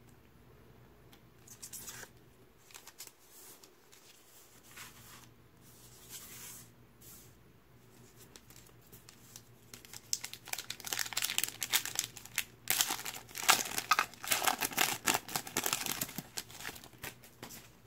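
Faint rustling of cards being handled and slid into plastic sleeves, then from about ten seconds in a long run of louder crinkling and tearing as the foil wrapper of a Panini Mosaic NBA trading-card pack is torn open.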